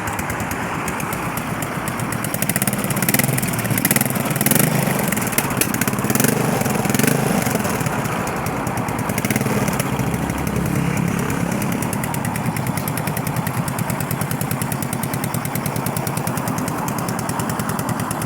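Yamaha SR400's air-cooled single-cylinder four-stroke engine running on a check run after repair. It is revved up a few times in the first half, then settles back to a steady idle.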